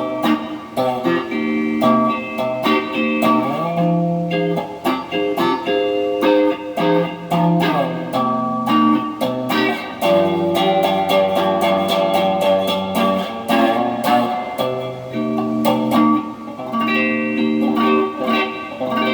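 Peavey electric guitar played through a Dumble-style overdrive pedal: a continuous run of picked single notes and chords, some left ringing.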